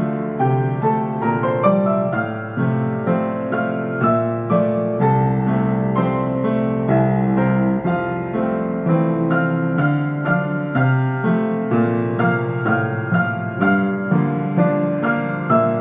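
Yamaha C1X grand piano being played: a continuous passage of melody notes over chords, with new notes struck several times a second.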